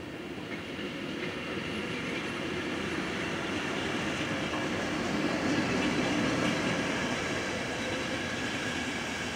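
Passenger train coaches rolling past on the rails: a steady noise of wheels on track that grows louder toward the middle and eases slightly after.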